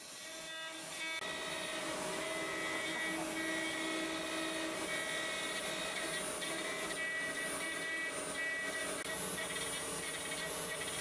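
CNC machining centre milling a metal mold core: steady spindle whine and cutting noise with several high fixed tones, fading in over the first couple of seconds and then holding level.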